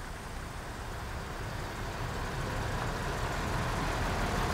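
Train passing close by: a steady rumbling noise that grows louder.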